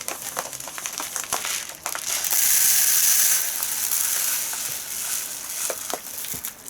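Dry basmati rice poured into a steamer's rice bowl, the grains hissing steadily, with crinkling from the rice bag. The pour is loudest between about two and three and a half seconds in, then goes on more softly.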